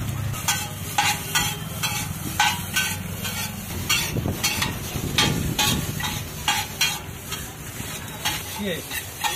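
Two metal spatulas clacking against a large flat griddle about twice a second as chowmein noodles are tossed and chopped, over the sizzle of frying.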